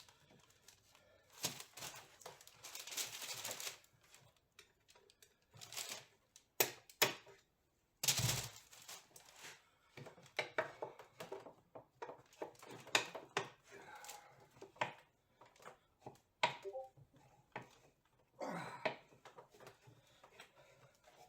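Irregular metallic clicks, taps and clinks of hand tools working on TR6 gearbox parts, with a few sharper knocks about six to eight seconds in.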